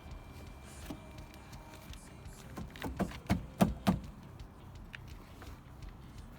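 A quick run of about six clicks and knocks, about three seconds in, from seat belt and interior trim parts being handled in a car, over a low steady rumble.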